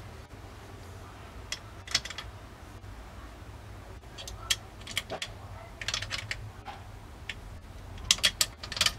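Small steel parts of a Marlin 1894 lever-action rifle's action clicking and tapping as they are handled and the hammer is worked into position in the receiver: scattered light clicks, bunching into a quick cluster near the end.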